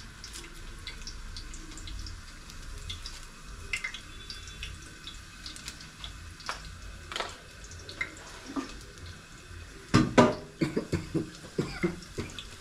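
Kitchen work at the stove: light clicks and taps of a utensil against a bowl over a steady hiss, with a quick run of louder clatter about ten seconds in.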